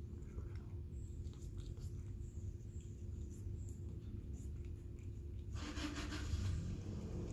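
A cat eating wet cat food from a dish, with faint chewing, licking and small clicks over a low steady hum. About five and a half seconds in comes a louder noisy stretch lasting a second or so.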